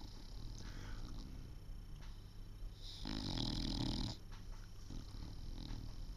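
English bulldog snoring: one loud snore about three seconds in, lasting about a second, with quieter snoring breaths before and after it.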